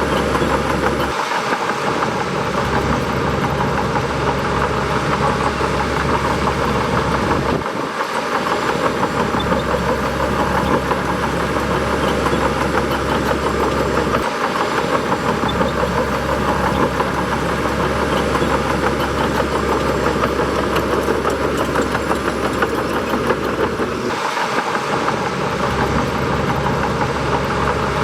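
Bulldozer's diesel engine running steadily under load while pushing dirt; the deep low rumble briefly drops away four times.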